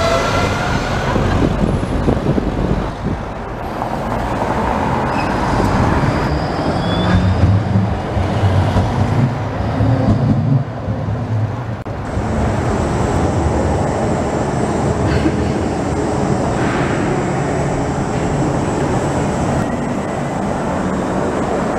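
City street traffic with a Bombardier Flexity Outlook tram rolling past close by. About twelve seconds in the sound changes to the steadier, even hum of an underground tram station.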